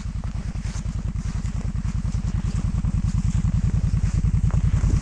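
Quad bike (ATV) engine running with a steady, rapid low throb that grows slowly louder.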